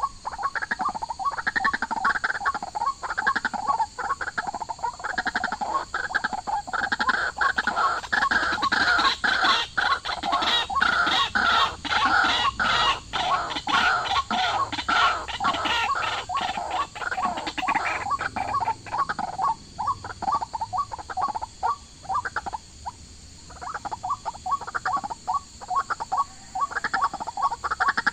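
A dense chorus of rapid, repeated animal calls, many overlapping. It grows fullest through the middle and thins out briefly before picking up again near the end.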